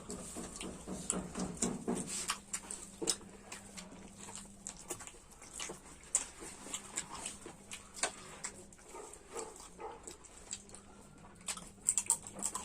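Close-miked eating sounds: chewing and lip smacking on chicken, irregular wet clicks a few times a second, with a busier run of clicks near the end.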